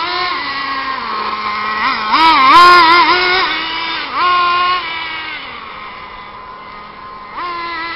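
Traxxas Rustler RC truck's motor running and revving, its whine gliding up and down in pitch with the throttle. It is loudest about two to three seconds in, with another short rev just after four seconds, then runs quieter before picking up again near the end.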